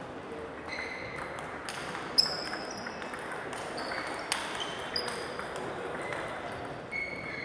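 Table tennis balls clicking off bats and tables: a dozen or so irregular, short pings, the sharpest about two seconds in and another just after four seconds.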